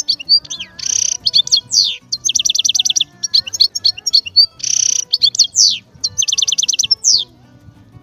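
A finch singing a fast, varied song: rapid trills of repeated notes alternating with quick rising and falling whistles, stopping a little before the end.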